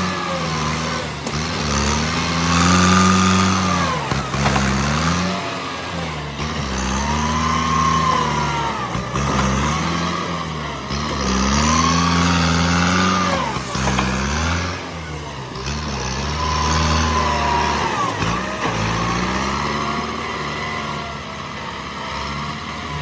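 Bulldozer's diesel engine working, revving up and dropping back in repeated surges about every four to five seconds, with a whine that rises and falls with each surge.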